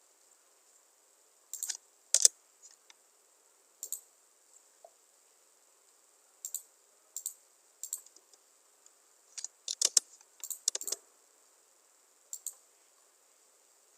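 Computer mouse and keyboard clicks in small scattered groups of two to four quick clicks, every second or two, with a busier run about ten seconds in. Quiet between the clicks.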